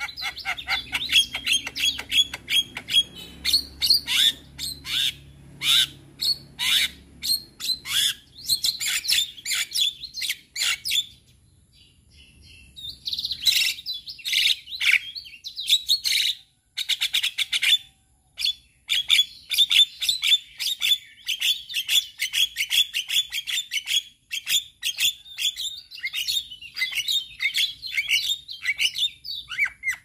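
Male Javan myna singing: long runs of fast, short whistled and chattering notes, broken by two brief pauses about twelve and seventeen seconds in.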